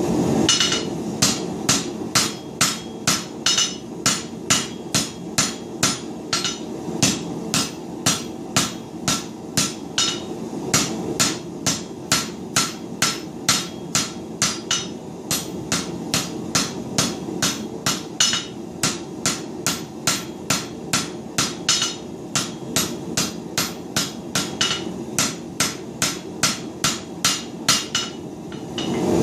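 A hand hammer striking a hot bundle of chainsaw chain on an anvil, about two blows a second with a few short pauses, forge-welding the chain into a solid bar. The forge runs steadily underneath.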